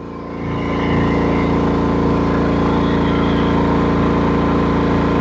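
GENMAX GM9000iED inverter generator engine running on propane under a load test. It speeds up and gets louder about half a second in, then holds a steady drone.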